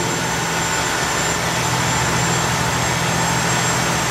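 Fishing trawler's engine running steadily, a constant low hum under an even rush of wind and water.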